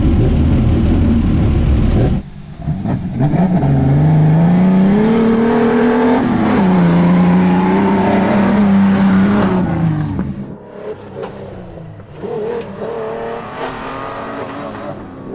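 Race-built 1991 Ford Explorer and Jeep Cherokee XJ off-road trucks at full throttle: dense, loud engine noise for the first two seconds, then one engine climbing in pitch under acceleration, holding steady and dropping away about ten seconds in, with fainter engine sound to follow.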